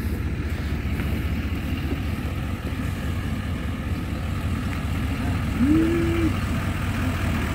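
Chevrolet Silverado heavy-duty dually pickup's engine idling with a steady low rumble. About six seconds in, a short hummed vocal sound rises and holds briefly.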